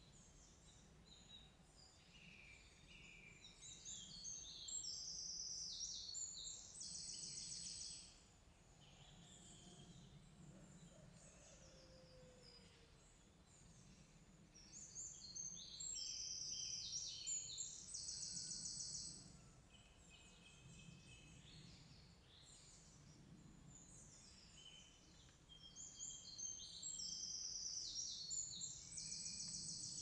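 A small songbird singing three long, high songs about ten seconds apart, each ending in a fast trill, over a faint low background rumble.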